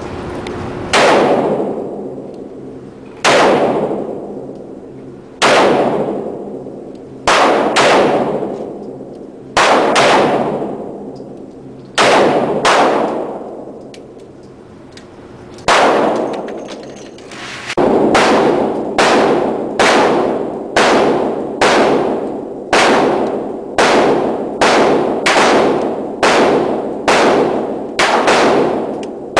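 Gunshots, each a sharp crack followed by a long echoing tail. A dozen or so come a second or two apart in the first half, then after a brief lull they come in a quick steady string, about one every two-thirds of a second.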